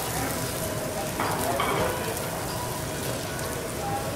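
Asparagus and shiitake mushrooms sizzling on a steel teppanyaki griddle, a steady frying hiss. Two short sharp metal sounds about a second and a half in come from the chef's knife scraping on the griddle.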